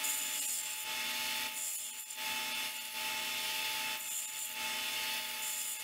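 Delta strip sander running with a steady motor whine while a small aluminum clip is held against its belt, the rasping of metal on the abrasive swelling and easing a few times as the piece is worked.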